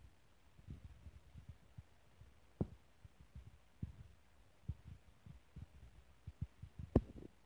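Soft, irregular low thumps of footsteps on an RV's interior floor as someone walks through it, with a louder thump near the end.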